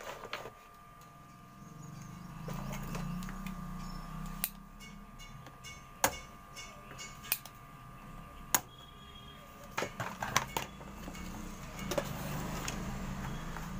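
Scattered small clicks and taps of a soldering iron and tools against a TV circuit board while a replacement capacitor is soldered in, over a low rumble that swells twice and a faint steady whine.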